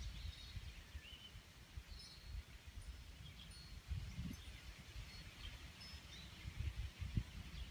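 Wind buffeting the microphone in irregular low gusts, with scattered short bird chirps over it.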